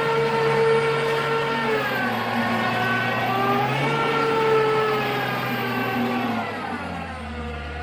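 A vehicle engine running, held at a steady pitch at first, then rising and falling in pitch as it revs, and dropping low near the end.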